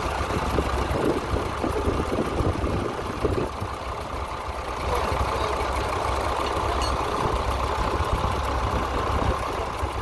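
Fordson Dexta tractor engine running steadily as it pulls a plough through the field.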